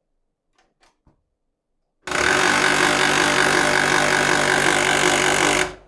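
HP LaserJet P1102W laser printer powering up with a loud, fast, evenly rhythmic mechanical rattle from its internal mechanism, starting about two seconds in after a few faint clicks and cutting off suddenly after about three and a half seconds. This is the faulty 'banging' noise the printer makes at switch-on.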